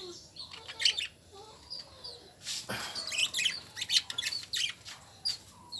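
Caged lovebirds chirping in clusters of short, shrill calls, with a brief rustling burst about halfway through.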